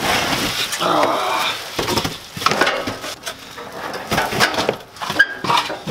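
Plastic wrapping crinkling and cardboard scraping as a metal griddle base is lifted out of its box. After about two seconds this gives way to scattered knocks and clicks.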